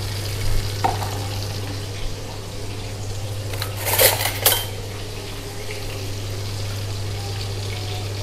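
Fish frying in hot oil in a wok, a steady sizzle under a low steady hum, with a short burst of metal clatter from a pan or utensil about halfway through.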